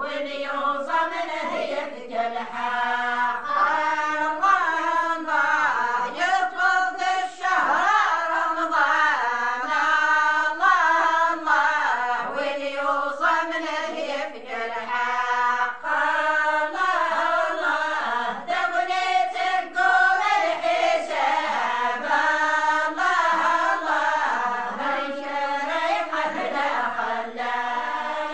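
A group of women singing an Amazigh religious praise song (madih) together, unaccompanied, in a wavering melody that runs in phrases.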